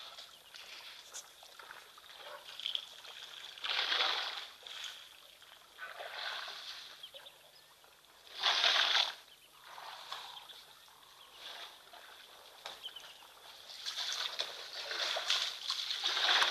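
African elephants drinking at a waterhole: water splashing and gushing in short bursts of about a second each, the loudest about halfway through and several more close together near the end.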